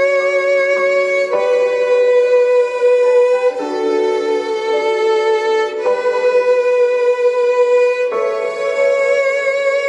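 Violin music: slow, held notes, the pitch changing about every two seconds.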